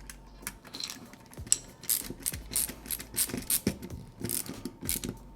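Screwdriver tightening a wire-terminal screw on a Leviton Decora remote dimmer switch: a run of irregular quick clicks and scrapes, busiest from about a second and a half in.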